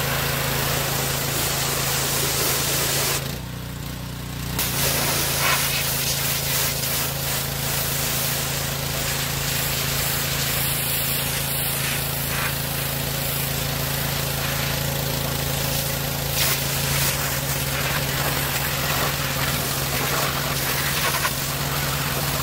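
Gas-engine pressure washer running steadily while its high-pressure spray hisses against a metal truck transmission case. The spray cuts out for about a second and a half roughly three seconds in, then starts again.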